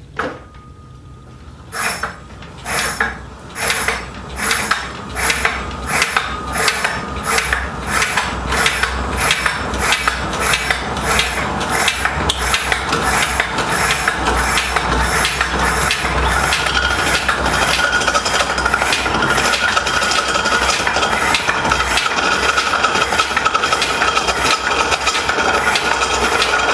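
A wood-turning gouge cutting a spinning wooden blank on a treadle-driven pole and flywheel lathe. It starts as rhythmic scraping strokes, about one and a half a second, that come faster and after about sixteen seconds merge into a steady rasping cut with a faint whine.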